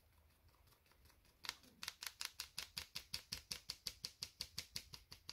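Plastic mesh sieve being tapped with a plastic spatula to sift flour, a second sifting for a finer flour. The quick, even taps start about one and a half seconds in and run at about six a second.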